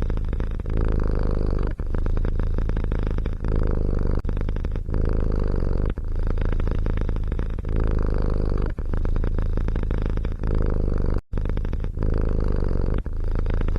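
Domestic cat purring loudly and close up, in a steady rhythm that swells and dips with each breath roughly every one to two seconds, with a brief break about eleven seconds in.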